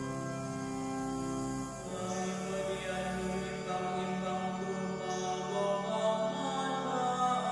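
A psalm chanted in the Karo language, with long sung notes held for a second or two each before moving to the next pitch.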